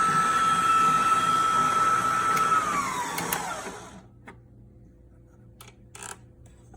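HOWORK 660 W electric stand mixer's motor running with a steady high whine, then switched off about two and a half seconds in, its pitch falling as it spins down over about a second. A few faint clicks follow.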